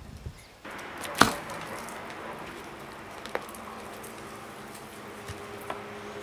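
A long-handled garden hoe chopping into soil and roots to dig out a hazelnut sucker: one loud sharp chop about a second in, then two fainter knocks.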